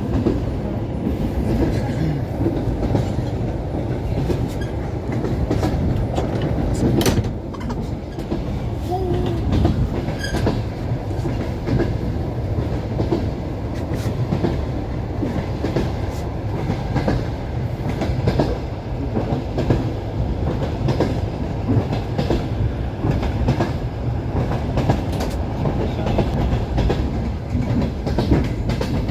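Long-distance passenger train running, its wheels knocking over the rail joints with a continuous low rumble. One sharper knock comes about seven seconds in.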